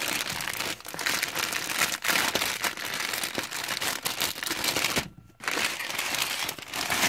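Thin plastic mailing envelope crinkling and rustling as it is handled and opened, with a short pause about five seconds in.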